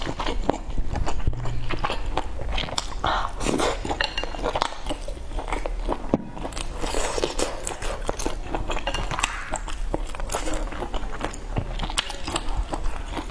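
Close-up chewing and biting of food, with many short sharp clicks and crackles throughout.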